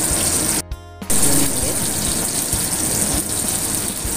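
Steady rushing hiss of running water, like a kitchen tap. It drops out for about half a second near the start, then comes back a little louder.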